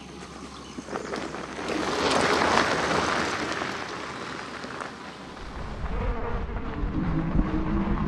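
Fat-tyre electric bike riding along a dirt and gravel track: the tyres' rolling noise swells as it passes and fades away, then wind rumbles on a handlebar-mounted microphone as it rides on.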